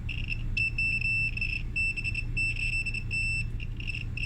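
Multimeter continuity beeper sounding a high-pitched tone that cuts in and out as the hand-held probes make and lose contact on a dryer part, then holds steady near the end: the part shows continuity and tests good.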